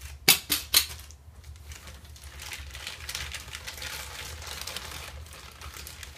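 Clear plastic packaging bag crinkling as it is pulled and worked off by hand. Three sharp crackles come in the first second, then a steady rustle.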